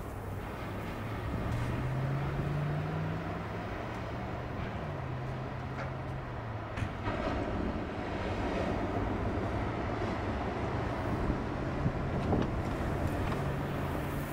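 Rushing wind-like noise over a steady low mechanical hum; the hum rises in pitch about two seconds in and drops back about five seconds in, with a couple of short clicks later on.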